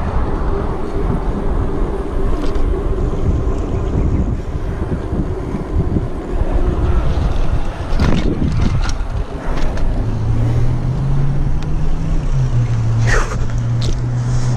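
Wind buffeting a bike-mounted camera's microphone over the rumble of mountain bike tyres rolling on pavement, with a sharp knock about eight seconds in as the bike goes onto the sidewalk. A steady low hum comes in near the end.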